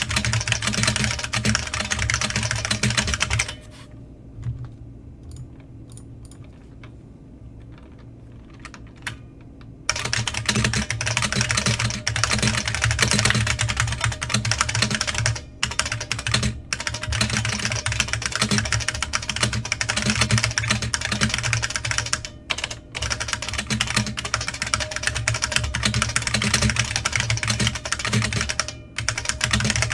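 Fast typing on a New Model F F77 keyboard: its buckling-spring keys, fitted with New Model F keycaps, clack in a dense, continuous rattle. A few seconds in, the typing stops for about six seconds, leaving only a few stray key clicks, then starts again.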